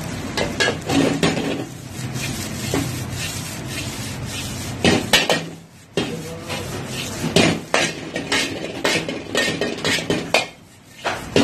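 A metal ladle repeatedly scrapes and clanks against an iron wok as fried rice is stir-fried and tossed, over a steady sizzle. Twice the noise drops away briefly, a little past the middle and near the end.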